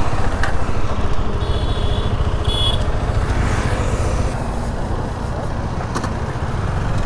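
Motorcycle moving slowly, heard from an action camera mounted on the bike: a steady low rumble of wind buffeting the microphone over the engine and road noise, with a few short faint high beeps about two seconds in.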